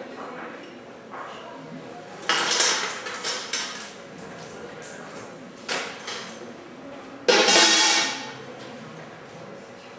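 Stainless steel surgical instruments clattering in metal bowls and trays, in several short bursts with a brief metallic ring, the loudest a little after seven seconds in.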